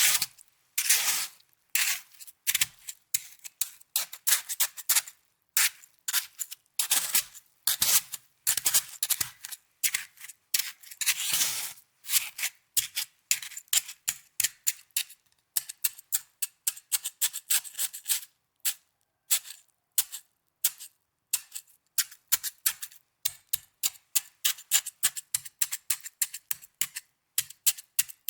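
Snow being crunched and crackled in a long series of short crisp bursts: longer, hissing crunches through the first half, then quick rapid ticks and crackles.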